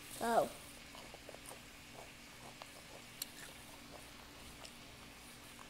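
A child chewing a crunchy puffed-rice Rice Krispie treat: faint, scattered small crunches. Near the start, a brief hummed voice sound rises and falls; it is the loudest moment.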